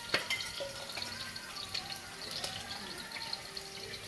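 Steady hiss of chicken cooking in a pot on the stove, with a sharp knock just after the start and a few lighter clinks of a utensil.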